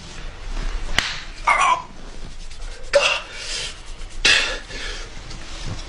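Young men's short pained yelps and breathy, cough-like outbursts, with a sharp click about a second in and another near the end.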